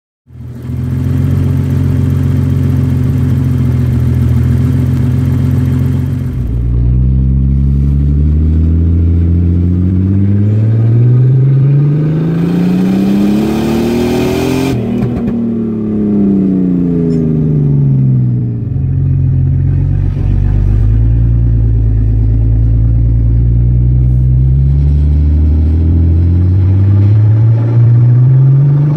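BMW E23's turbocharged straight-six, heard from inside the car while driving. It runs steadily at first, then the revs climb for several seconds to a peak about halfway, fall away, hold steady, and climb again near the end.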